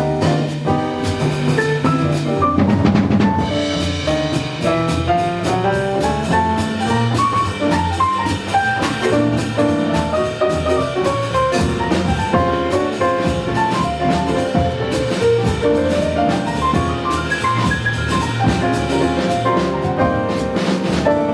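Live jazz band playing: a busy drum kit with cymbals and a walking bass under a fast melodic line of short notes that climbs and falls, with piano comping.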